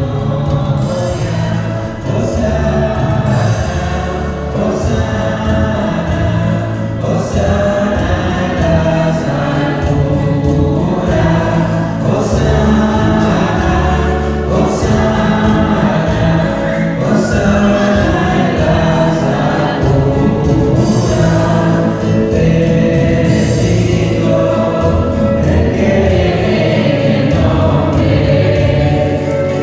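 A church choir singing a hymn with instrumental accompaniment and a steady bass line, continuous throughout: music of a Mass in progress.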